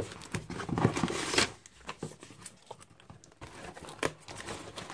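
A taped cardboard shipping box being opened by hand: packing tape tearing away and the cardboard flaps scraping and rustling open, in uneven bursts with the busiest stretch about a second in and a sharp click near four seconds.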